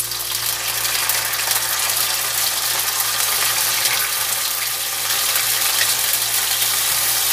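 Canned sardines in tomato sauce sizzling in hot oil in a wok with browned garlic and onion, a steady hiss, while a wooden spatula stirs them.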